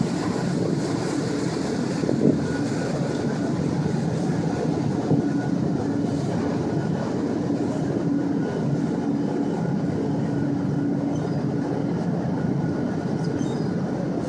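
A ferry's engines running with a steady low drone and a faint steady hum on top, as the ferry moves slowly into its slip.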